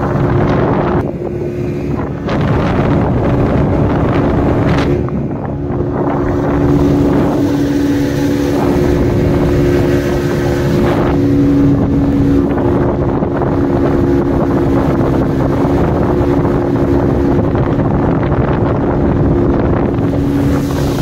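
A petrol-engined motorboat running at speed with a steady engine drone. Wind buffets the microphone and water rushes past the hull.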